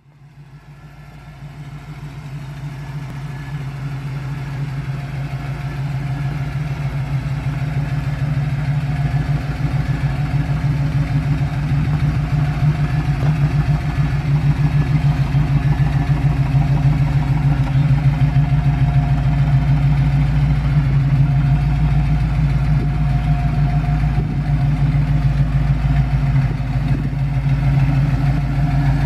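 A 1977 GMC Jimmy's factory 400 cubic-inch V8 idling steadily through its exhaust, with no revving. It grows louder over the first several seconds, then holds an even, low note.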